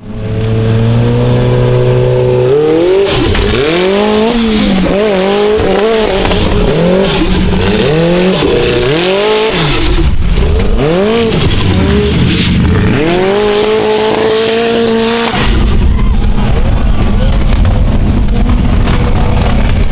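Formula Offroad buggy's V8 engine revving hard in quick rises and falls as it charges up a steep dirt hill, then climbing to high revs and holding there. After about 15 seconds the sound turns into a steady, rougher, noisier running, as the throttle hangs stuck open and the car goes over the top.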